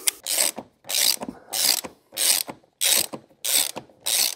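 Ratchet socket wrench clicking in repeated strokes, a short burst of clicks about every half-second, as a 19 mm self-locking nylon nut is run down onto a quad bike's front wheel axle.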